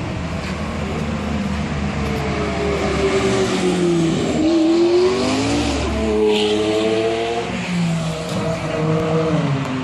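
McLaren P1's twin-turbo V8 accelerating hard, the exhaust note climbing in pitch, dropping about four seconds in, then climbing again and holding high.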